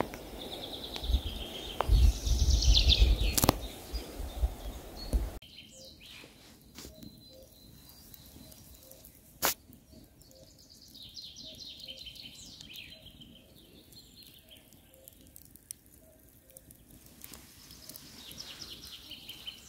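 A small songbird singing short trilled phrases of fast repeated notes, one near the start, one about halfway through and a short one near the end. For the first five seconds wind rumbles on the microphone, and it cuts off suddenly; a single sharp click comes about halfway through.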